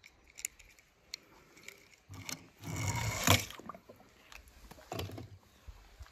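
Light clicks and scrapes from handling a die-cast toy car, with a louder scraping stretch about two and a half to three and a half seconds in and another short one near five seconds.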